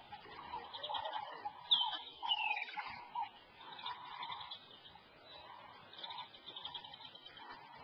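Bird call in open-country ambience: a clear whistle sliding down in pitch about two seconds in, over faint continuous background calling.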